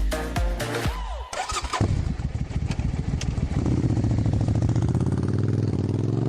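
Electronic dance music with a beat for about the first second, then the Italika ATV 250's engine comes in and runs loudly, its pitch slowly rising as it revs.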